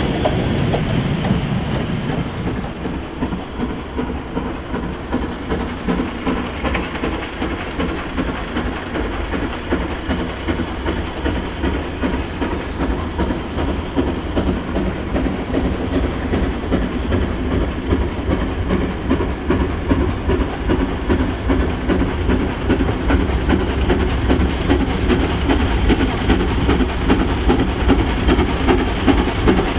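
A steam locomotive works hard hauling a freight train, its rhythmic exhaust beats growing steadily louder as it approaches. In the first two seconds the rumble of the previous train's wagons fades away.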